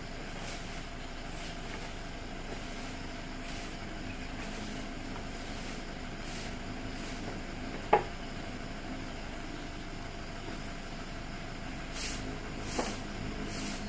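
Broom sweeping dry leaves across concrete in short, repeated swishing strokes, over a steady low hum. A single sharp knock comes about 8 seconds in, and the strokes get louder near the end.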